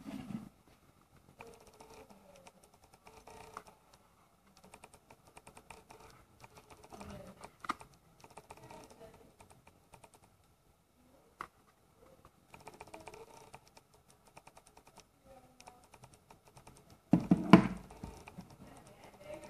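Handling noise from a small black set-top box being turned over in the hands: scattered light clicks, taps and rustles. A louder cluster of knocks near the end as it is set down on the table.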